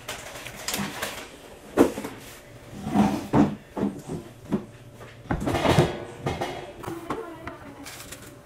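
Kitchen handling sounds: a kitchen cabinet door opening and closing among a string of knocks and clatters, the sharpest knock about two seconds in.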